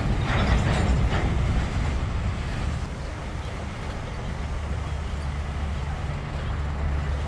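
Freight train of open-top hopper cars rolling past: a low, steady rumble of steel wheels on rail, rougher in the first second or so and settling into a steady low drone about halfway through.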